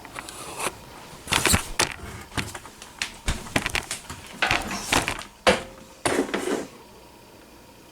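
Sewing machine foot pedal and its cord being handled: irregular rustles with a few sharp clicks and knocks.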